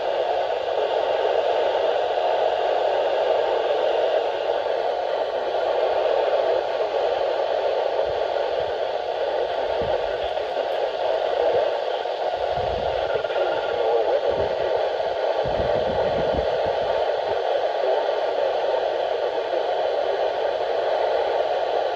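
Steady hiss and static from a weather radio receiver, strongest in the middle range, with a few low thumps and rumbles about halfway through.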